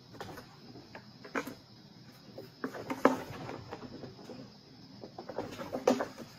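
Kittens' paws scrabbling and bumping against a corrugated cardboard scratcher and the carpet as they play, in irregular clusters of knocks. The loudest bump comes about three seconds in, with another flurry near six seconds.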